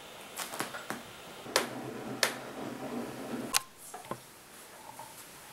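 A handful of faint, sharp clicks and taps, with soft rustling in the middle, over low room noise; it goes quieter after about four seconds.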